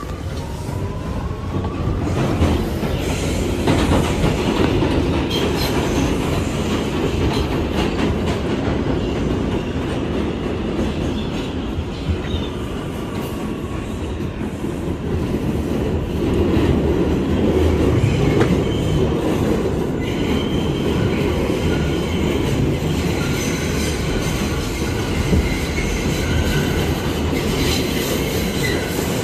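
R211A subway train heard from inside the car as it pulls out and runs through the tunnel: a rising electric whine from the propulsion in the first couple of seconds as it accelerates, then a steady rumble of wheels on rail with clicks over rail joints and thin wheel squeal in the later part.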